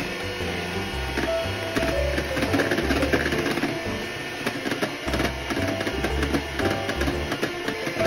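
Electric hand mixer running steadily, its beaters whipping meringue of egg whites and sugar in a glass bowl, with frequent light clicks. The meringue is still being beaten until the sugar dissolves and it firms up. Soft background music plays underneath.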